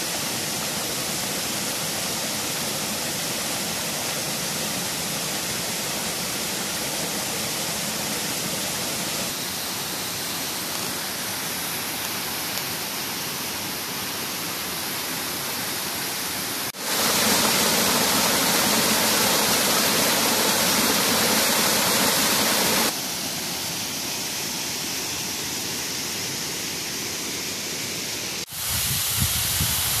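Waterfall pouring into a rocky plunge pool: a steady rush of falling water. It jumps suddenly louder a little past halfway, drops back about six seconds later, and jumps louder again near the end.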